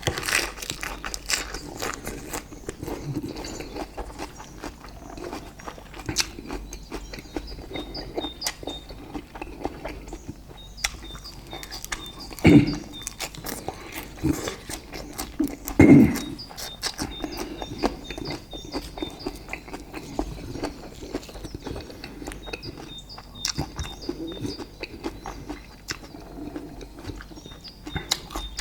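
Close-up eating sounds: chewing and lip smacking with many small wet clicks as steak and sticky rice with a spicy tomato dip are eaten. Two louder, longer mouth sounds come about halfway through.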